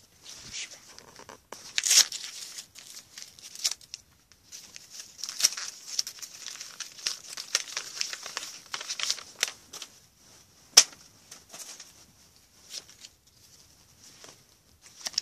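Match Attax football card pack's plastic wrapper being torn open and crinkled by hand, a dense run of crackling rustles, with one sharp click about eleven seconds in; after that only a few light rustles.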